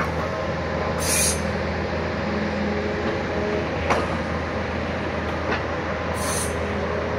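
Wacker Neuson 50Z3 mini excavator's diesel engine running steadily with hydraulic whine as the boom and bucket move. Short high hisses about a second in and near the end, and a sharp click about four seconds in.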